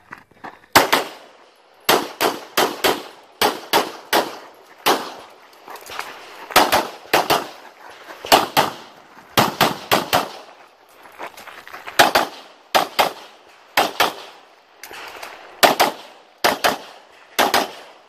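Semi-automatic pistol fired through a USPSA stage, with sharp shots mostly in quick pairs and short gaps between groups, about thirty shots in all.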